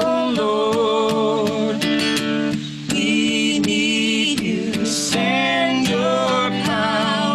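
Worship song sung over a strummed acoustic guitar. The voice holds long, wavering notes, with short breaks between sung lines.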